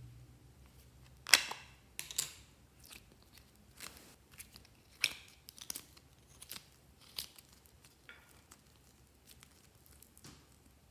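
Glossy slime being squeezed, stretched and pressed by hand, giving off irregular sticky pops and crackles; the loudest come just over a second in and at about five seconds.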